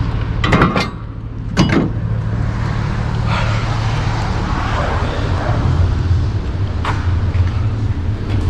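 A vehicle engine idling with a steady low hum. Sharp bangs ring out about half a second and just under two seconds in, with a lighter knock near seven seconds.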